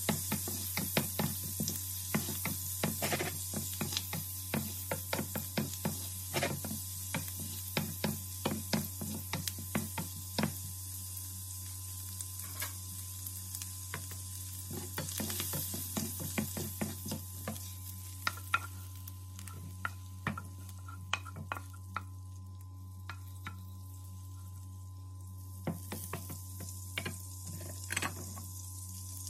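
Shrimp sizzling in a nonstick frying pan while a spatula stirs them, with rapid clacks and scrapes against the pan for roughly the first ten seconds. After that the sizzle goes on more quietly, with occasional scrapes as the shrimp are lifted out, over a steady low hum.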